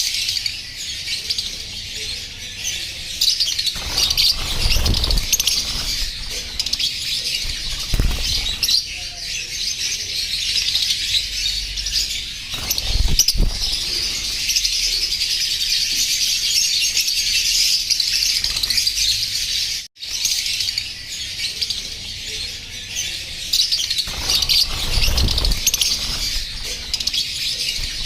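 Rosy-faced lovebirds chirping continuously in a dense, shrill chatter, with a few low thumps now and then.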